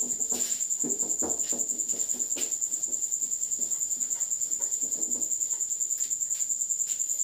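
Duster rubbing across a whiteboard in a run of irregular wiping strokes, over a cricket's steady high-pitched pulsing chirp.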